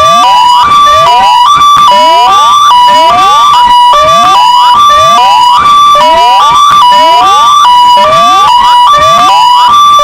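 Two electronic sirens, a Vittal and a Kingvox SPMX, sounding together at full volume. One steps back and forth between two close pitches in a hi-lo pattern, while the other repeats a rising whoop sweep about once a second.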